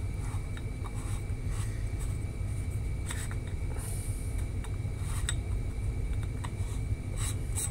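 Faint scrapes and light clicks of a metal UV filter ring being screwed onto a camera lens's filter thread by hand, a few small handling sounds spread out over a steady low hum.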